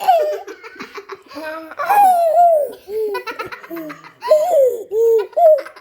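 A small child making high-pitched vocal noises: a string of short squeals that rise and fall in pitch, mixed with giggly laughter.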